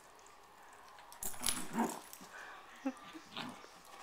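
Small dog whining in a short burst about a second in, then a few brief whimpers, while begging for another dog's bone.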